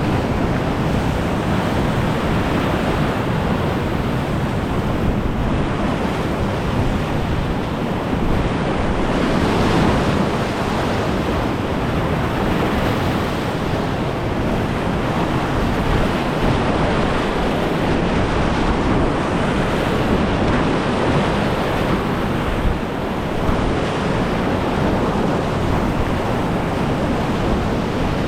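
Steady roar of fast, pushy whitewater rapids on a big river at about 2,440 cfs, heard from a kayak in the current, with wind buffeting the microphone.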